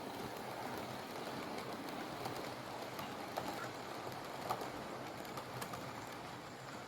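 OO gauge model train running on the track: a steady running noise with a low hum, and a few light clicks from the middle of the run.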